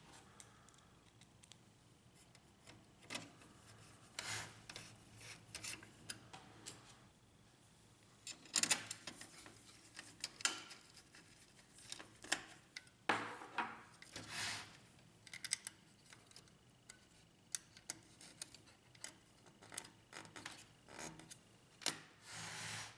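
Hand-handling of HP LaserJet P1102 printer parts during reassembly: scattered light clicks, taps and short scrapes of plastic and metal pieces being fitted, with a longer scrape near the end.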